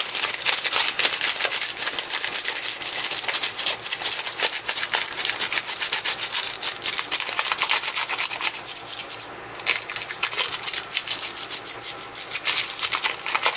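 A stiff nail brush with its bristles cut short scrubbing rapidly back and forth over metallic transfer foil and its plastic carrier sheet, pressing the foil onto a gilding-adhesive coat on a sewing machine's body. Fast scratchy strokes, with a short pause about nine seconds in.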